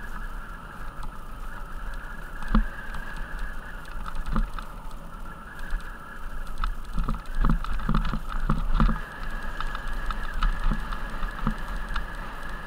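Mountain bike rattling and clattering as it rolls down a rough dirt and rock trail, with a run of sharper knocks about seven to nine seconds in as it crosses stony ground, over low wind rumble on the microphone.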